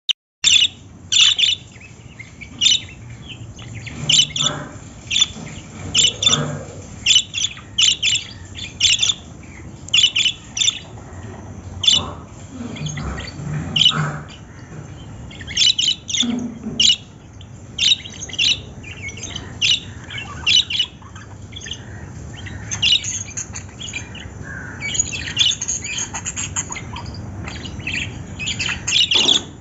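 Small pet parrots giving short, shrill chirps and squawks, one after another in quick runs, with a busier burst of calls near the end.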